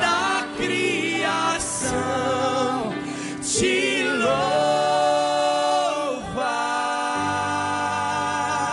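Male worship singer singing a gospel song live into a microphone over a steady instrumental backing, with vibrato. He holds one long note in the middle, and it falls away at its end.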